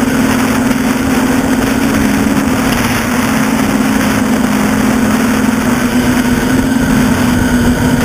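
NL-650 quadcopter's motors and propellers buzzing steadily in flight, heard close up on board, the pitch sagging slightly and rising again as the throttle shifts.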